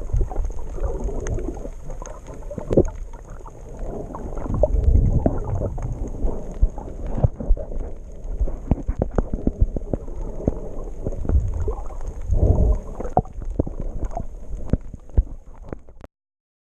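Muffled water sloshing and gurgling around a snorkeler's camera, with uneven low rumbles and many small sharp clicks. It cuts off suddenly near the end.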